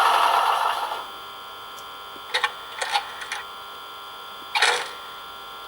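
Extra function sounds from an ESU LokSound 4 sound decoder in an H0 model Class 150 locomotive, played through its small speaker. A steady sound dies away in the first second, then come a few sharp clicks and, near the end, a short hiss-like burst.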